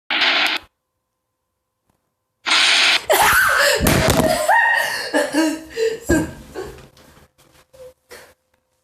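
A brief burst of noise, then vocal sounds rising and falling in pitch with scattered clicks for most of the rest.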